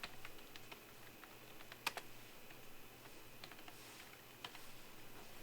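Scattered light clicks and taps at irregular intervals, with one sharper click about two seconds in, over a faint steady hum.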